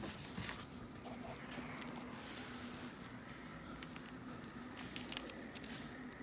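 Gas soldering torch burning with a faint steady hiss while it heats an anti-theft bolt, with a few small clicks and knocks of handling.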